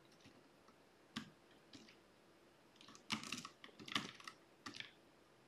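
Faint, scattered keystrokes on a computer keyboard: single key presses about a second in and just before two seconds, a quicker run of presses around three seconds in, then a few more near the end.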